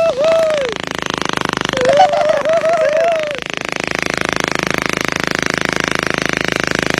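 Motorcycle engine running steadily with a fast, even pulsing beat, on a bike modified to run in flood water. Short rising-and-falling voice calls break in near the start and again about two to three seconds in.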